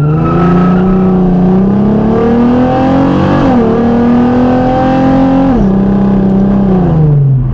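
Ford Mustang's 4.0 V6, breathing through long-tube headers and Cherry Bomb glasspacks, under hard acceleration: the engine note climbs steadily, dips briefly at an upshift about halfway through and climbs again, then drops as the throttle is lifted and winds down near the end.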